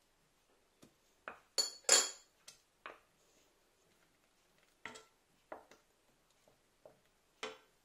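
Scattered clinks and knocks of spoons against a stainless-steel saucepan as butter is dropped into caramel sauce and stirred in with a wooden spoon. The loudest, ringing clinks come about two seconds in; softer knocks follow every second or so.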